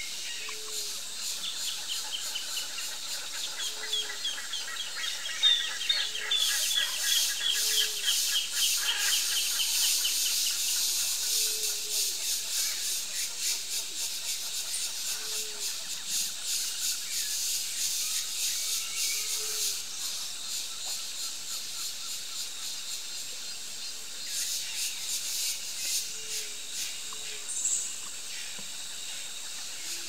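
Forest ambience: a high, steady insect buzz that swells a few seconds in, eases off around twenty seconds and comes back near the end. Over the first ten seconds there is a fast run of high pulsing notes, and short low calls repeat every second or two throughout. No loud macaw squawks stand out.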